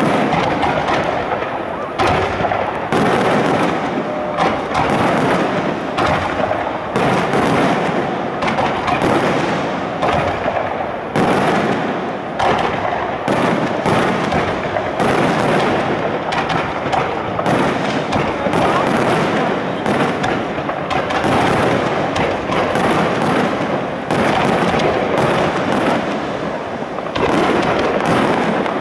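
Aerial firework shells bursting in a dense barrage, one loud bang after another, several a second with hardly a gap.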